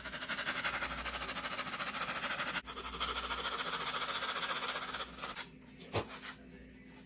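Small flat metal file rasping back and forth in quick, even strokes across a cured patch of two-part expanding foam on a foam model-jet wing, shaping it level with the wing. The filing pauses briefly a couple of seconds in and stops about five seconds in, followed by a single click.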